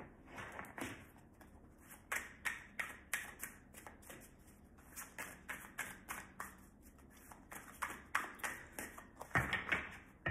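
A deck of tarot cards shuffled by hand, cards slapped and flicked from one hand into the other in a quick, uneven run of soft clicks, several a second, a little denser near the end.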